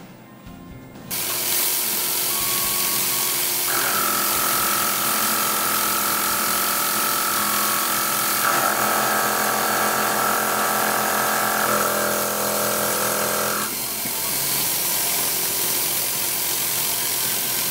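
Tormach PCNC mill facing aluminium bar stock with a fly cutter. A steady hiss starts about a second in, and from about four to fourteen seconds in a set of steady whining tones from the spindle and cutter sits over it, shifting in pitch twice.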